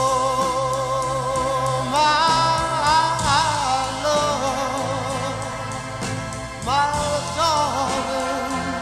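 A song with a singer holding long, wavering notes over instrumental backing, new phrases coming in about two seconds in and again near the end.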